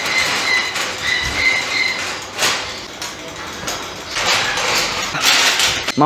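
Black metal wire cage panels scraping and grating against each other as a section is slid down into place, with a thin high metal squeal in the first two seconds and a knock about two and a half seconds in.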